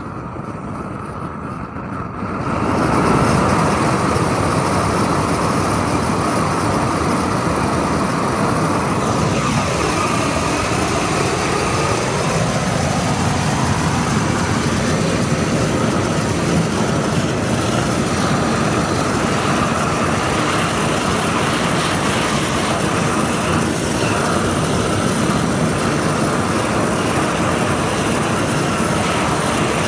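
Propane weed-burner torch lit about two and a half seconds in, then burning with a loud, steady rushing roar.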